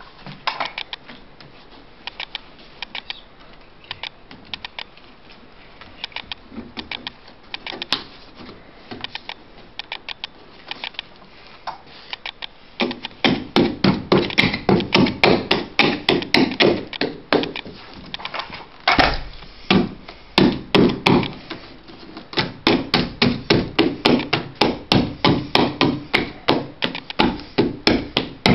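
Carpet stair tool driven into the gap between carpet and baseboard to tuck the carpet edge onto the tack strip, making repeated sharp knocks. The knocks are light and scattered at first, then become loud, rapid strikes about three a second from roughly halfway through.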